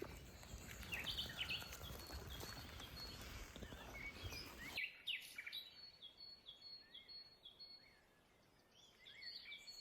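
Small birds chirping with short, repeated high notes. Over the first half a rough hissing noise runs underneath and stops abruptly about five seconds in, leaving only the birdsong.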